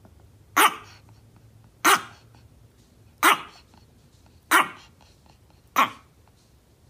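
Chihuahua barking: five short, sharp barks, evenly spaced a little over a second apart.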